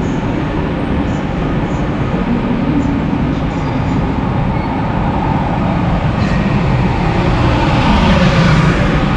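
Train running on rails: a loud, steady rumble that swells briefly near the end.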